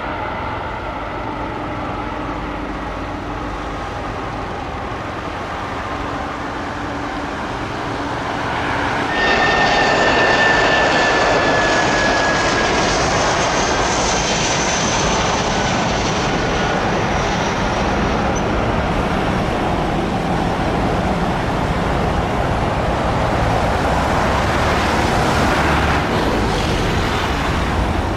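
Jet engines of an Airbus A300 freighter running at taxi power, a steady rushing noise with faint whining tones. About nine seconds in the sound jumps louder, and a high whine falls slowly in pitch.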